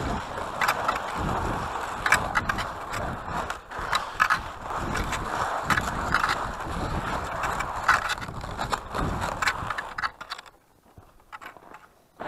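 Fischer cross-country skis hissing and scraping as they glide along a classic track in crusty snow, with ski poles clicking into the snow about once a second. The sound drops off sharply about ten seconds in, leaving only a few faint clicks.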